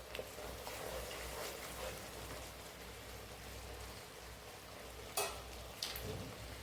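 A jaggery and ginger-paste mixture with ghee sizzling quietly in a kadai on the gas while it cooks down to dry, with a couple of sharp clicks about five seconds in.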